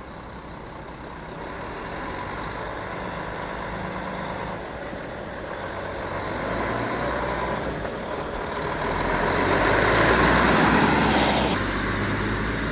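Diesel engine of a semi-trailer tractor unit running without a trailer as it pulls through a turn and drives past. It grows louder to a peak about ten seconds in, then drops off abruptly.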